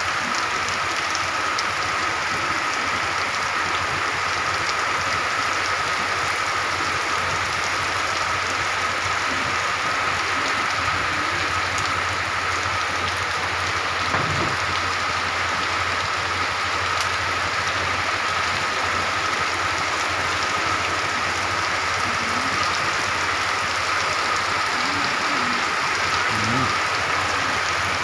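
Heavy rain falling steadily on a wet paved street, an even, unbroken hiss of downpour. A thin steady tone runs beneath it.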